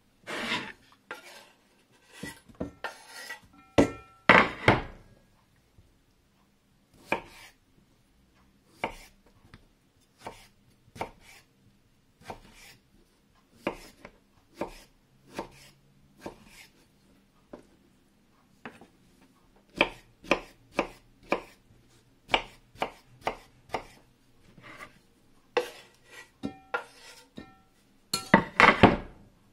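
Kitchen knife chopping potatoes on a wooden cutting board: single sharp cuts at an irregular pace, sometimes a few in quick succession, then a louder burst of clatter near the end.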